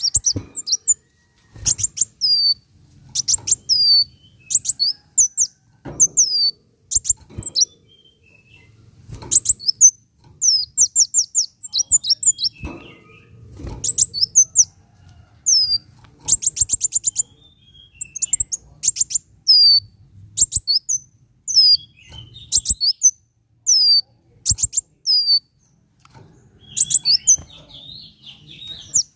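Kolibri wulung sunbird singing: phrases of rapid high chirps and short falling whistled notes, repeated every second or two.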